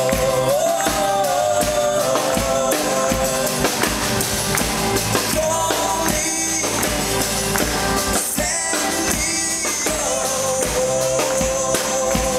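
Live band playing a song on drum kit, acoustic guitar and keyboards, with a voice singing long held notes at the start and again near the end.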